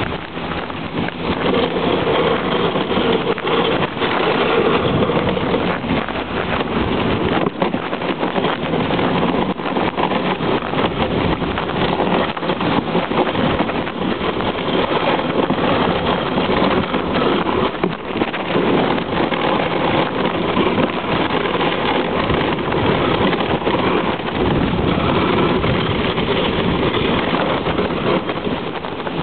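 Dog sled running over snow: a steady rushing scrape of the runners with many small knocks and rattles, and wind buffeting the microphone.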